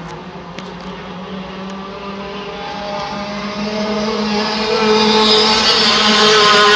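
Racing hydroplane engine growing steadily louder as the boat approaches, a pitched engine note with many overtones. Under it, early on, a steadier low drone.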